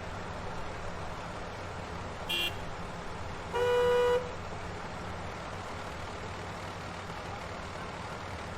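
Congested road traffic: a steady rumble of engines and tyres, with a short high-pitched horn toot about two seconds in and a louder, longer car horn blast about a second later.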